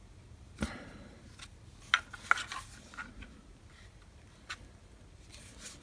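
Handling of a cordless cut-off tool and its packaging: scattered clicks and knocks, a dull thump just over half a second in, the two sharpest clicks about two seconds in, and a brief rustle near the end.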